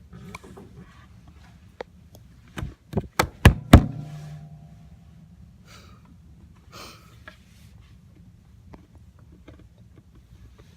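A quick run of five sharp knocks about three seconds in, growing louder, the last leaving a brief ringing hum.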